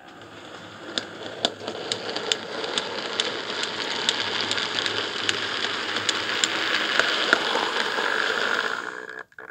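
Model railway train, a small diesel shunter hauling a rake of goods wagons, rolling along the track with a steady running rumble and sharp wheel clicks about twice a second, growing louder as it passes close by. The sound cuts off suddenly near the end.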